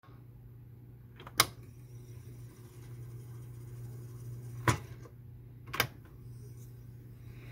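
Tandberg Model 12-41 reel-to-reel tape recorder with a steady low hum, and three sharp clicks as its control knob is switched between positions.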